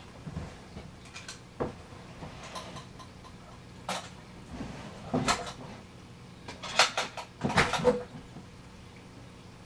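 Scattered knocks, clatters and rustling of someone rummaging through household things to fetch them, with the loudest bangs about two-thirds of the way through.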